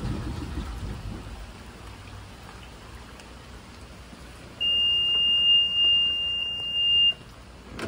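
Low rumble of the Yanmar marine diesel dying away as the engine stops, then the engine panel's alarm buzzer sounding one loud, steady high beep for about two and a half seconds before cutting off. A short click follows near the end.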